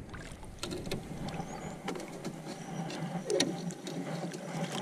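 Collapsible wire-mesh fish basket clinking and rattling as it is lifted and opened to take a crappie, over a steady motor hum.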